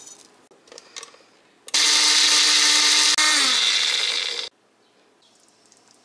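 Personal bullet-style blender grinding dry-roasted whole spices (coriander, cumin, cinnamon, cardamom, cloves, fennel) to powder. A few light knocks come first, then the motor runs loud for about three seconds with a brief break, its pitch sagging in the last second before it cuts off suddenly.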